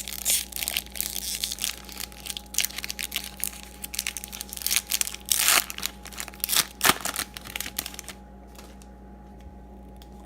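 A trading card pack wrapper being torn open and crumpled by hand: dense crinkling and crackling that stops about eight seconds in.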